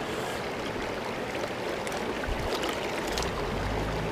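Shallow creek water rushing steadily, with light swishing of water in a plastic gold pan as sand is panned in it. A low rumble comes in near the end.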